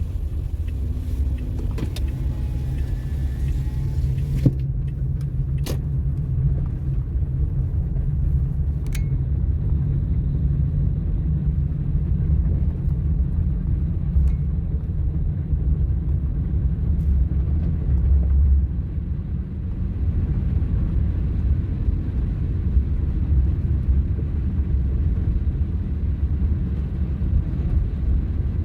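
Car driving on snowy streets, heard from inside the cabin: a steady low rumble of engine and tyres, with a few light clicks in the first several seconds.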